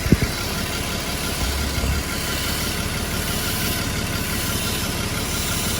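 Audi Q7's 3.6-litre VR6 engine idling steadily, with a hiss of air being sucked in through a cracked vacuum hose as the hose is moved. There is a single sharp click just after the start.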